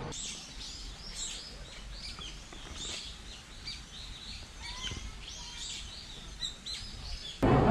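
Many small birds chirping and twittering, a busy stream of short high calls over a faint low rumble.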